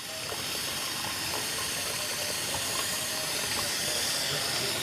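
Water running steadily from a tap, a continuous hiss that grows slightly louder as it fills a pot for boiling.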